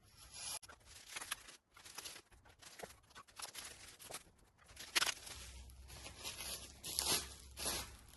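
Packaging being torn open and rustled by hand: a run of irregular ripping and crinkling noises, the loudest a little past the middle and again near the end.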